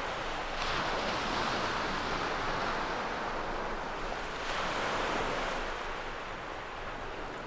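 Small waves breaking and washing onto a shingle beach: a steady surf noise that swells twice, about half a second in and again past the middle.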